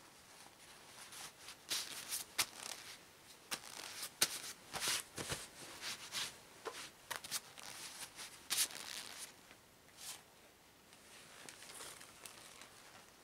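Rubber gloves being pulled on and worked over the hands: rubbery rustling with sharp crinkly snaps, busiest for the first nine seconds and sparser near the end.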